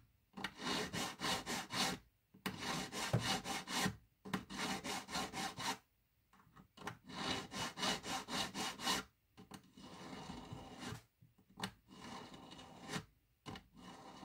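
Needle file rasping across the broken end of a silver ring shank in quick back-and-forth strokes, about five a second, in bursts of a second or two with short pauses, fainter in the last few seconds. The file is squaring off the grey, grainy fracture to clean, flat, shiny metal ready for soldering.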